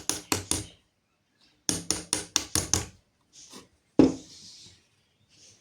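Hammer tapping nails partway into the tube of a homemade rain stick: a few quick taps, a fast run of about six, then one harder blow with a short ring about four seconds in.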